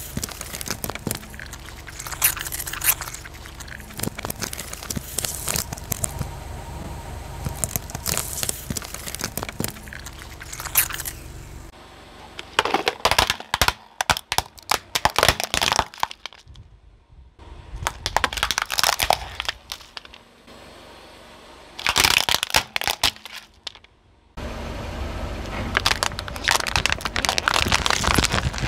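A car tyre rolling slowly over objects and crushing them, in several short clips: many sharp cracks and crunches of breaking plastic and squashed contents. It crushes plastic jelly cups, then a frying pan, then cups of water beads.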